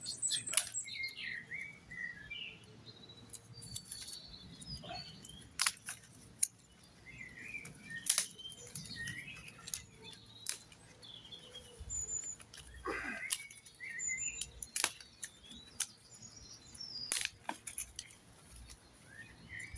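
Small birds chirping and calling, with sharp clicks now and then from hand pruning shears snipping hydrangea stems.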